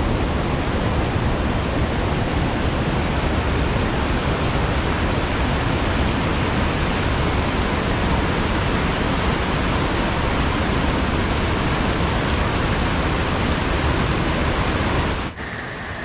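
Kuthungal waterfall in full monsoon flow and the flooded river below it rushing as a dense, steady noise. Near the end it cuts to a quieter, more distant rush.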